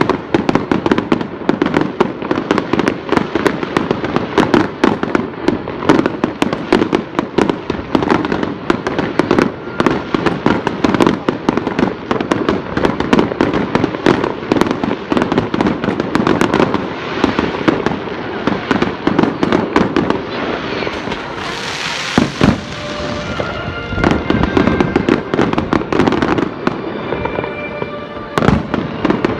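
Fireworks display: a rapid, unbroken barrage of bangs and crackles, with a burst of hissing about twenty-two seconds in.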